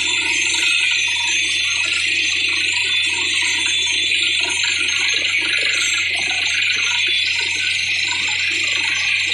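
Borewell drilling rig running: a loud, steady hiss over a low, even hum, with some uneven rattling in between.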